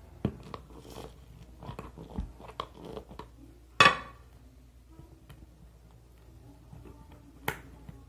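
Scattered small clicks and knocks of hands handling a small glass bottle while peppers are pushed into it, with a sharp knock a little under four seconds in and another near the end.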